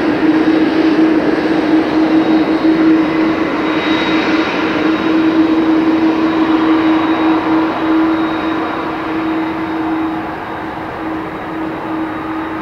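Airbus A330-300's General Electric CF6-80E1 turbofan engines running at low taxi power: a steady hum over a jet rush, growing a little quieter in the last few seconds as the airliner turns away.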